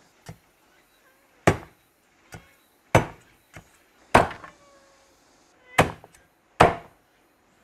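Cleaver chopping cured pig trotters on a chopping board: heavy single chops about a second apart, with a few lighter strikes between them.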